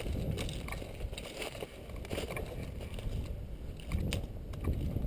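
Footsteps crunching over dry brush, twigs and loose soil, an irregular crackle of several steps a second over a low rumble on the microphone.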